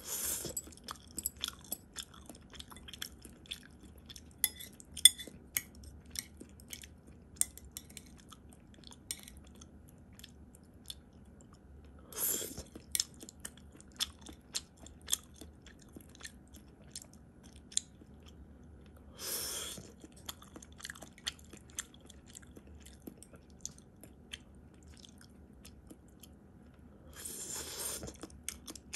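Close-miked chewing of mouthfuls of rice, a dense run of small sharp mouth clicks and crunches. Four louder rustling bursts, each about a second long, come near the start, about 12 s in, about 19 s in and near the end.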